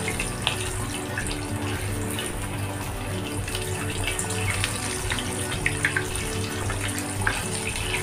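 Breaded chicken cutlets deep-frying in hot oil in a kadai: a steady sizzle with sharp crackles and pops, several of them in the second half, as the cutlets are turned.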